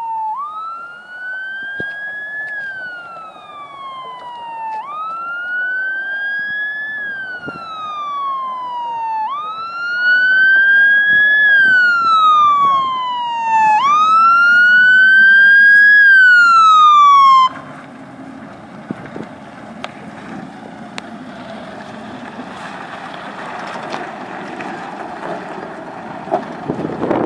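Fire engine siren wailing, each cycle sweeping up and then sliding slowly down, about every four and a half seconds, growing louder as the truck approaches and cut off suddenly about seventeen seconds in. After that, the fire engine's engine and its tyres on the gravel track as it drives up and turns.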